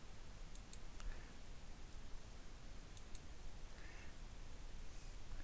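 Computer mouse clicked in quick pairs, twice, about two and a half seconds apart, over a faint steady hiss.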